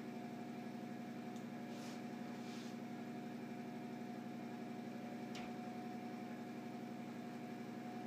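Steady mechanical hum with several held tones, like a running appliance or fan, and a few faint clicks and scrapes as electrical wire is handled.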